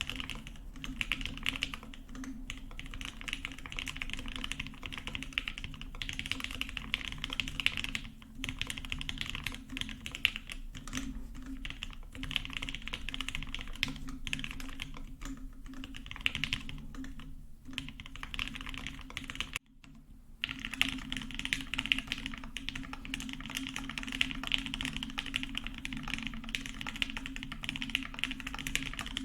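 Continuous fast typing on a Meridian mechanical keyboard with an aluminium plate, filmed CannonKeys Lavender switches and GMK keycaps, mounted top mount. About two-thirds of the way through, the typing breaks off for under a second, then resumes with the board in burger mount.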